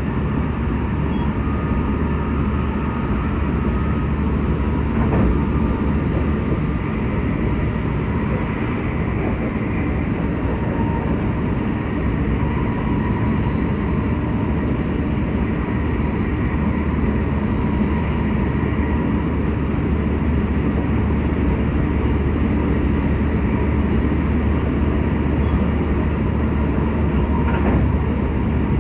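Running noise inside an E257 series 0 limited express train travelling steadily, heard through the window glass: an even rumble of wheels on rail, with faint steady tones above it.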